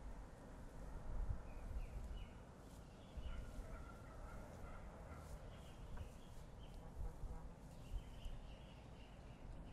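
Faint bird calls: short chirping notes repeated in little clusters, over a low rumble.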